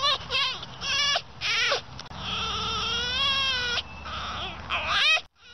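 Domestic cat meowing repeatedly: several short meows, then one long, wavering meow about two seconds in, and a short rising meow near the end.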